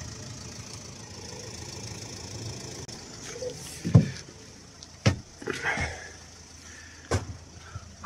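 Footsteps and handling knocks as someone moves about inside a van: a sharp thump about halfway through and two more knocks after it, with some rustling, over a steady low rumble.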